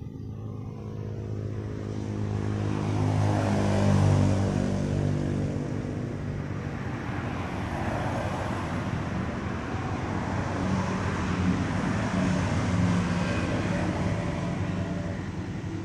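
Motor vehicles passing by: low engine hum with a rushing noise, swelling to a peak about four seconds in and staying up as further vehicles go past.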